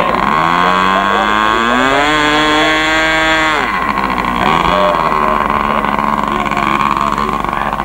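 Engine of a large radio-controlled Bücker Jungmeister scale biplane being run up while the plane is held by its tail: the revs climb over about two seconds, hold high, then drop suddenly back to a steady idle about three and a half seconds in.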